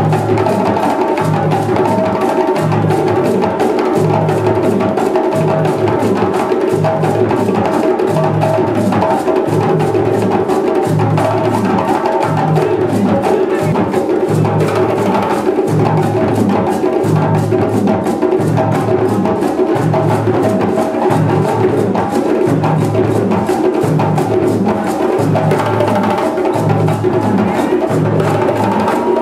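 West African drum ensemble playing live: djembe hand drums beat dense, rapid patterns over a steady low bass-drum beat from the dunduns, which falls about every three-quarters of a second.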